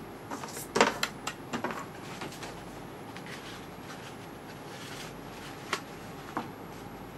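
A quick run of plastic clicks and taps as a green circuit board is pressed and fitted onto a black plastic HP OfficeJet Pro 8100 printhead, the loudest about a second in. Two single clicks follow near the end over a steady faint hiss.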